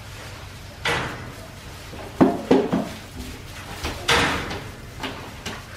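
Irregular knocks and clatters over a low steady hum: a bang about a second in, three sharp knocks in quick succession around two seconds in, a louder clatter around four seconds in, and two light clicks near the end.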